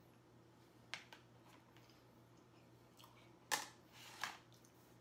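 A few short clicks and scrapes of a utensil against a black plastic meal-prep bowl, the loudest about three and a half seconds in, with quiet between them.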